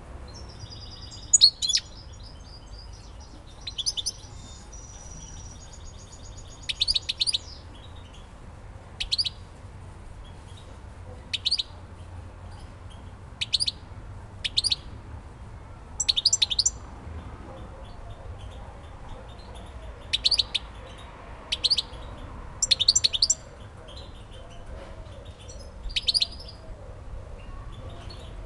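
European goldfinch in a cage giving short, sharp calls, one every second or two, with a couple of longer, steady notes in the first seven seconds.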